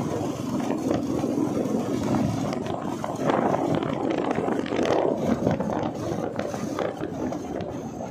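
Wind rushing over the microphone from a moving motorcycle, mixed with the motorcycle's running engine and road noise, steady throughout.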